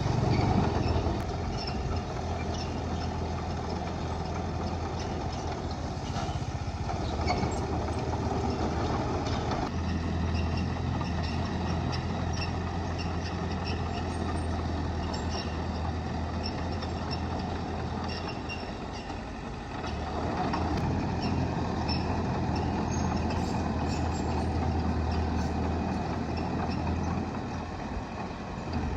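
Bulldozer's diesel engine running steadily as it works dirt, with scattered faint metallic clinks; it eases off briefly twice, about two-thirds of the way in and near the end.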